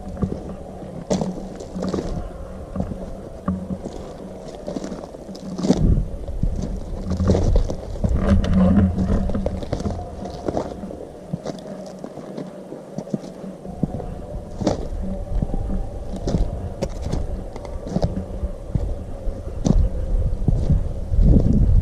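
Irregular knocks, scrapes and rustling over a low rumble: handling and movement noise from a camera carried outdoors.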